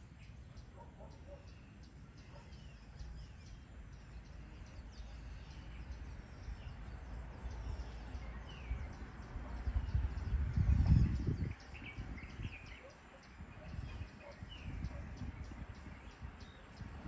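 Outdoor countryside ambience: scattered bird chirps over a steady low hum. A low rumble swells about ten seconds in, then cuts off sharply a second or so later.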